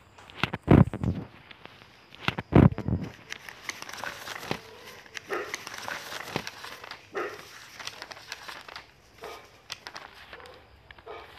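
Irregular rustling and crinkling with scattered clicks, and two louder thumps about one and two and a half seconds in.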